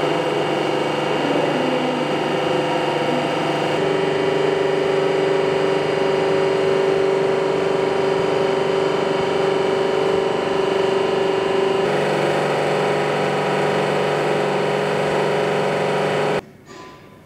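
Steady hum and whine of the electric winding engine machinery in a colliery winding house: electric motors and drive gearing, with several held tones. The tones change abruptly twice and the sound cuts off near the end.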